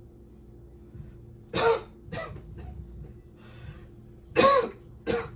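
A person's short, sharp pained outbursts: cough-like cries and grunts. Two are loud, about one and a half seconds in and near the end, with a softer breathy one between them.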